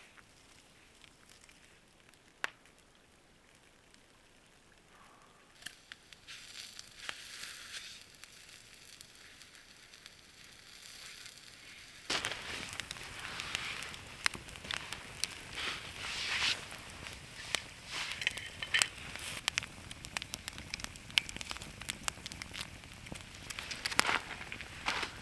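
Wood campfire crackling, with irregular sharp pops and snaps. It is faint at first and turns abruptly louder about halfway through.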